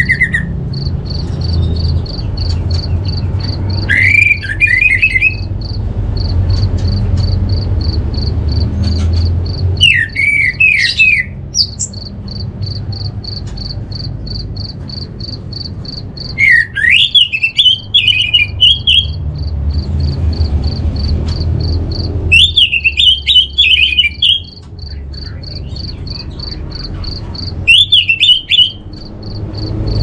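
Orange-headed thrush singing five short, fast warbling phrases of one to two seconds each, spaced about six seconds apart. A cricket-like insect chirps in a steady even pulse throughout, over a low rumble.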